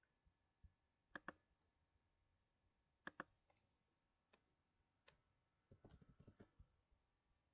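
Faint computer mouse clicks, several in quick pairs, then a short quick run of keyboard taps about six seconds in as a date is typed into a form.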